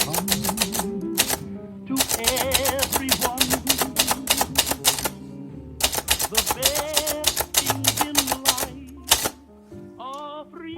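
Princessa typewriter typed on in quick runs of keystrokes, with two short pauses, stopping about nine seconds in. A song with singing plays underneath.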